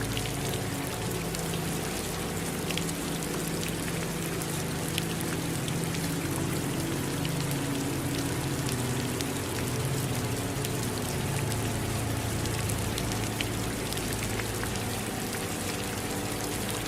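Steady rain falling, with scattered individual drops ticking sharply over an even hiss and a low steady rumble beneath.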